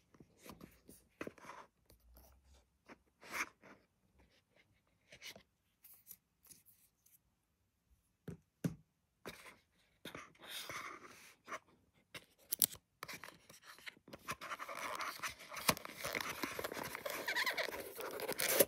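Hands handling a cardboard phone box and its paper-board inserts: scattered light taps and scrapes, then denser, continuous rustling and scraping over the last few seconds as the packed charging cable is pulled from its tray.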